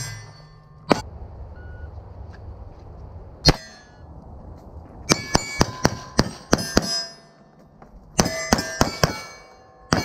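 Pistol shots with steel targets ringing as they are hit: two single shots, then two fast strings of about half a dozen shots each.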